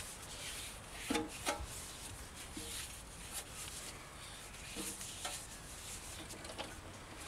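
A starting strap being handled and wound onto the starting pulley of a stopped single-cylinder side-valve engine: light rubbing with a few small clicks and knocks. The engine is not running.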